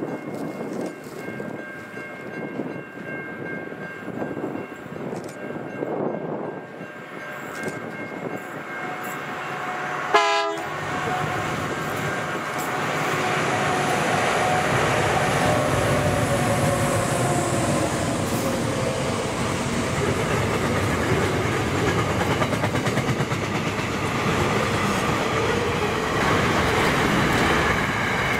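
A diesel-hauled freight train sounds one short horn blast about ten seconds in. It then passes close by, its wheel and rail rolling noise building up and staying loud.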